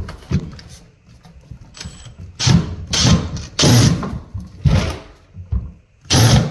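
Cordless impact driver run in short bursts, driving a screw through the wardrobe frame into a wall stud. There are about six separate bursts, a few with a brief whine as the motor spins up and down.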